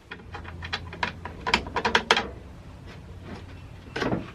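Quick runs of small metallic clicks and rattles from loose metal chainsaw parts and hand tools being handled: a busy stretch at the start and another cluster near the end.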